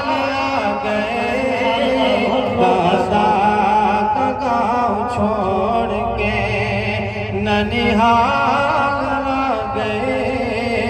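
A man singing a devotional Urdu kalam (naat) into a microphone, drawing out long wavering melodic phrases.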